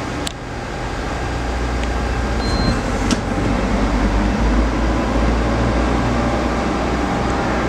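Okuma Crown 762E CNC turning center running: a steady mechanical hum that builds over the first couple of seconds and then holds. There is a light click near the start, another about three seconds in, and a brief high beep about two and a half seconds in.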